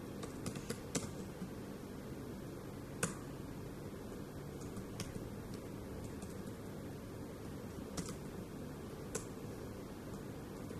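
Scattered, sharp key clicks of someone typing short words on a tablet keyboard, a few irregular taps every second or two, over a steady low hum of room noise.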